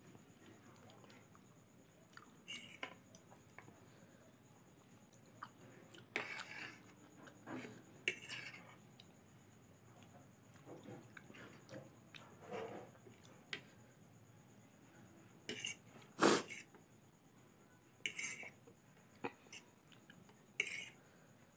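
Close-up eating sounds of soft, soupy instant noodles: wet chewing, with a metal spoon and fork clinking and scraping on the plate now and then. The sharpest sound is a single click about sixteen seconds in.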